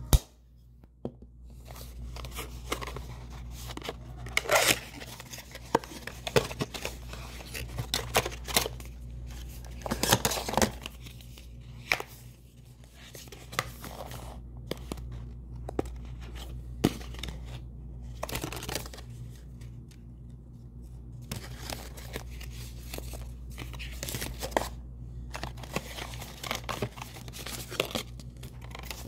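Earphone packaging being handled: irregular rustling, crinkling and tearing of plastic bags, paper cards and cardboard box inserts, with a sharp click right at the start. A steady low hum runs underneath.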